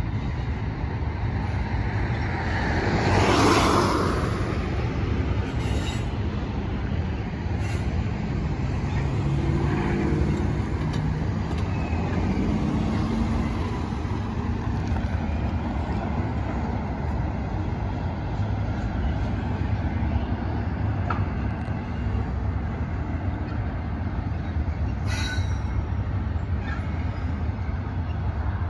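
Union Pacific double-stack intermodal train rolling across a railroad bridge: a steady low rumble of the container cars' wheels. There is a louder swell that rises and falls about three to four seconds in.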